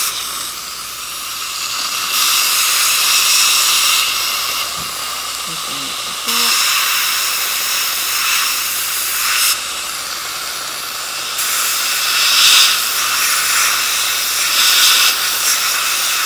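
Dental air-water syringe spraying water onto the teeth to rinse off blue etching gel before the braces are bonded. The louder spray spells start and stop abruptly every few seconds over a steady hiss from the suction tube in the mouth.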